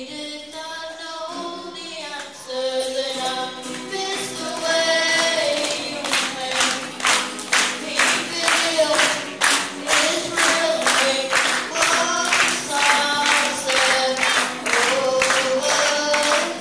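A boy singing a song and accompanying himself on acoustic guitar. From about four seconds in, a steady beat of sharp strokes, about two a second, runs under the singing.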